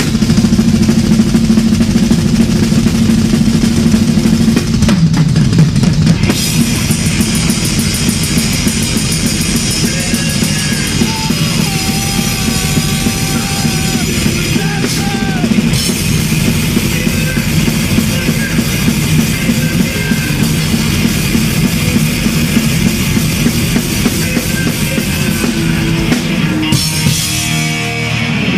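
A thrash metal band playing live, with fast drumming and crashing cymbals out front over distorted guitars. A held low chord dives in pitch about five seconds in, and bending lead-guitar lines come in the middle.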